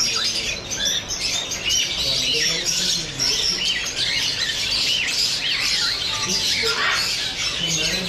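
Many caged pet birds chirping and squawking together, a dense chorus of short, overlapping rising and falling calls.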